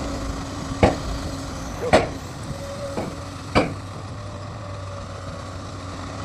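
Excavator's diesel engine running steadily, with four sharp knocks in the first four seconds, then only the steady running.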